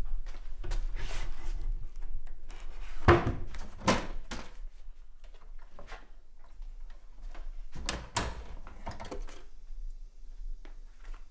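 Knocks and clatters of household items being moved about in a kitchen cupboard, with thunks like a cupboard door being handled. The loudest knocks come about three and four seconds in, and another cluster comes near eight seconds. A faint low hum runs underneath.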